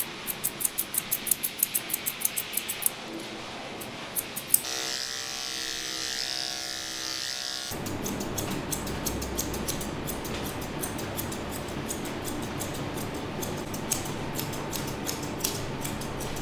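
Grooming scissors snipping cat fur, about four quick snips a second, for the first three seconds. About four seconds in, a steady electric hum starts and lasts about three seconds, then gives way to a steady rustling noise with fine ticks.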